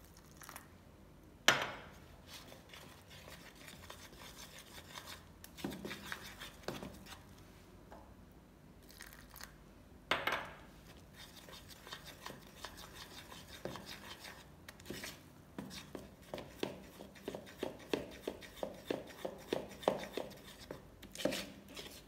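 A metal spoon mixing besan (gram flour) and water into batter in a plastic bowl, scraping and clicking against the bowl, with a sharp knock about a second and a half in and another about ten seconds in. In the last several seconds it becomes beating: rhythmic spoon strokes, two or three a second.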